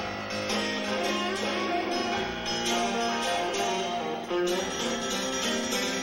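Live rock concert recording: guitar picking a run of changing notes over the band.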